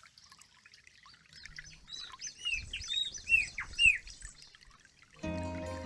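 Wild birds chirping and calling, a quick run of short arched whistled notes. Background music comes in about five seconds in.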